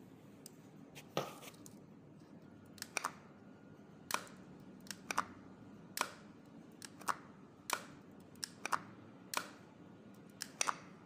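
Repeated sharp clicks, some single and some in quick pairs or triplets, as a switch is worked by hand to energise and release the electromagnetic brake coil on a three-phase induction motor, the brake's armature plate snapping against the coil.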